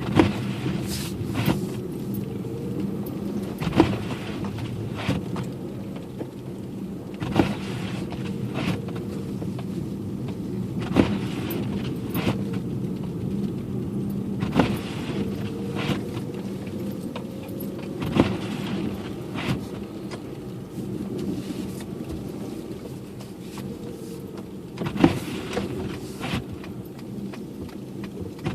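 Car engine and road noise as a steady low hum heard from inside the cabin, with the windshield wipers knocking at the ends of their sweep. There is a sharp knock about every three and a half seconds and a lighter one in between.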